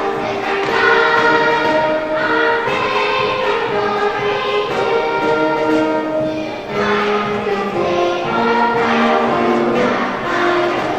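Music: a choir singing a slow melody in held notes, with instruments.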